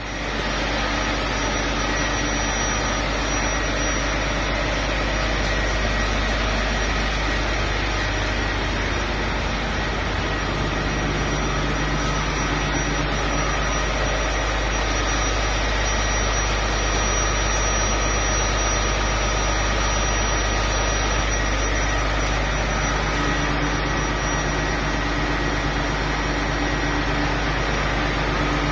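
A steady mechanical drone, unchanging throughout, with a strong low hum and a few faint steady whining tones above it, like machinery or an engine running.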